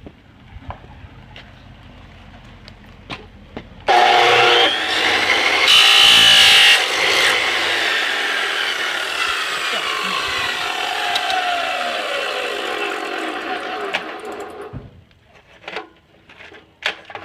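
Chop saw motor switched on about four seconds in, its blade cutting loudly through the Nerf blaster's plastic for a few seconds. The motor is then released and spins down, its whine falling slowly in pitch until it stops.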